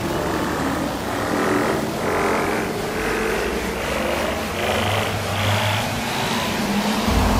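Epic orchestral background music building up, with a figure that climbs step by step in pitch about twice a second.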